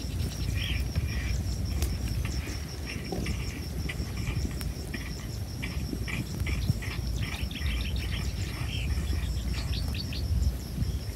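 Open-field ambience: an insect's steady high trill and short, scattered bird chirps over a low, constant rumble of wind on the microphone.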